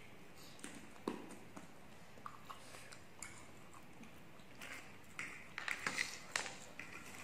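Eating sounds of people chewing chicken and noodles: wet mouth smacks and short clicks scattered through, with a quicker run of them about five to six seconds in.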